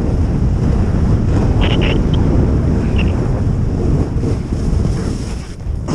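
Wind rushing over and buffeting the microphone of a camera carried by a snowboarder riding fast downhill: a loud, steady low rumble.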